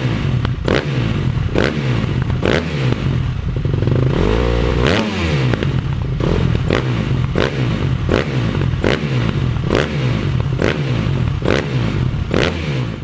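End-card sound track: an engine-like low drone, with a sharp hit about once a second at a steady rhythm. It starts and stops abruptly, as an edited-in clip.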